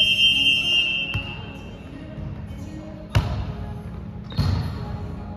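Referee's whistle blown once for about a second, then two sharp volleyball hits about a second apart, echoing in a gym hall.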